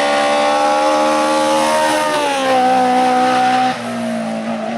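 Race car engine at high revs on a hill-climb course. Its pitch falls about two seconds in, and it drops in loudness suddenly near the end.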